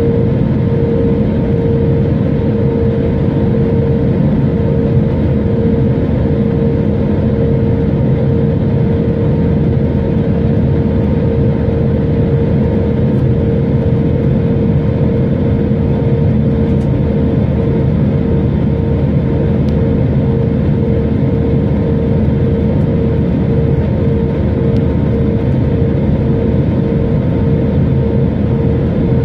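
Airbus A321neo cabin noise in flight on the descent to land: a steady rush of engine and airflow with a constant hum running through it.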